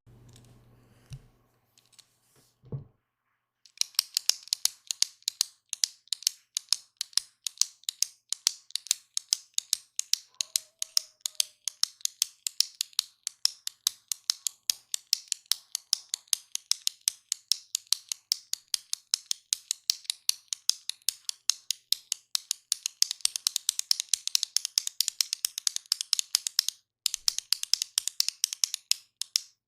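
A retractable click pen clicked over and over in quick succession: sharp, high clicks several times a second. The clicking begins about four seconds in after a soft thump, and breaks off briefly near the end.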